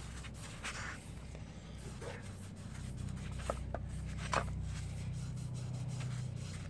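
Green scouring pad rubbing inside the bore of an aluminium GY6 scooter cylinder, soft scratchy scrubbing strokes clearing the last grey deposits from the bore. A low steady hum underneath grows louder in the second half.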